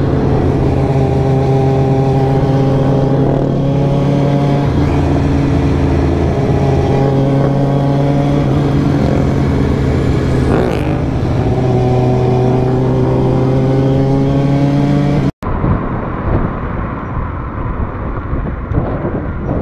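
Motorcycle engine running steadily at highway speed, heard from the rider's own bike, its pitch drifting slowly up and down. About three quarters of the way through it cuts off abruptly and gives way to wind and street noise without any engine.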